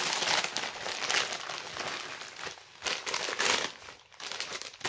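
Gift packaging crinkling and rustling as a present is unwrapped by hand, in several bursts with short pauses, thinning out near the end.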